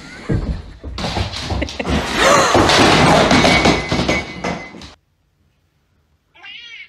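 A few seconds of loud, noisy commotion that stops suddenly. After a pause, a cat gives a short meow near the end.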